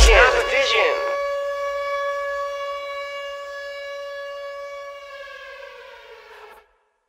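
The final held note of a hip-hop track: after the last vocal glides die away in the first second, a single steady tone rings on, fading slowly over about five seconds before cutting off into silence.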